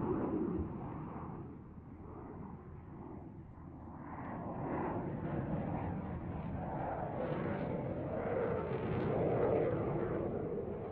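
Eurofighter Typhoon fighter jet's twin Eurojet EJ200 turbofans, a dense jet rumble that fades for a couple of seconds early on and then builds louder again toward the end.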